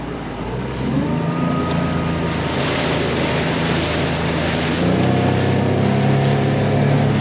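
40hp Suzuki outboard on a small RIB opening up in two steps, about a second in and again near five seconds in, its pitch rising each time. The hiss of water and wind grows as the boat picks up speed.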